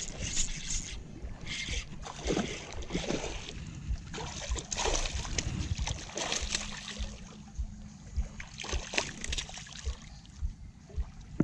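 Hooked fish splashing and thrashing at the water's surface close to a rocky bank as it is played in, in irregular bursts with short knocks between.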